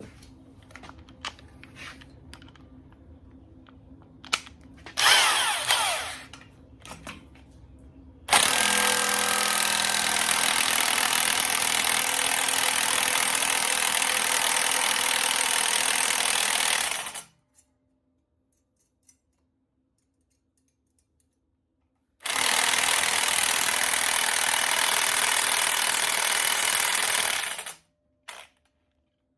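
Impact wrench hammering on the crankshaft pulley bolt of an LQ4 6.0 V8, trying to break it loose. It runs in two long runs of about nine and five seconds, after a few light clicks and a short burst.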